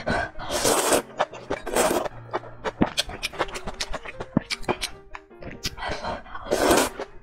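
Spicy soup noodles slurped in three hissy pulls, one about half a second in, one near two seconds and a longer one near the end, with wet chewing clicks between them.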